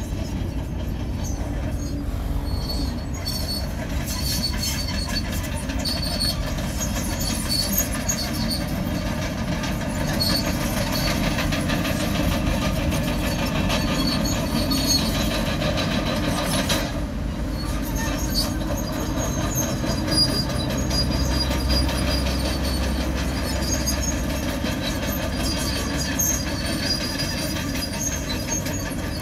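Komatsu D51PX crawler bulldozer working, its diesel engine running steadily under load while its steel tracks squeal intermittently with high, thin tones.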